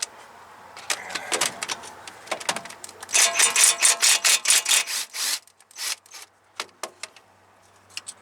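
Hand ratchet clicking in quick strokes as a bolt is backed out, densest in the middle, followed by a few separate metal clicks.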